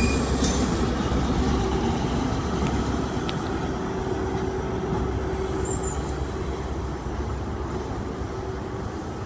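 Class 43 HST power car's MTU diesel engine running with a steady hum over the rumble of the train rolling slowly past, fading gradually as the rear power car draws away.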